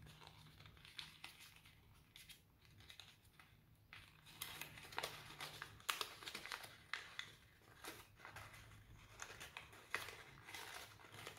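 Faint crinkling and crackling of a sheet of white paper being folded and tucked by hand as the last flaps of an origami cuboctahedron are worked into place. The small crackles are sparse at first and come thicker from about four seconds in.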